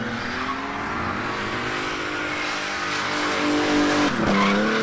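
A drift car's engine held at high revs while it slides, its rear tyres squealing and spinning. The engine note climbs slowly, dips sharply for a moment near the end, and rises again.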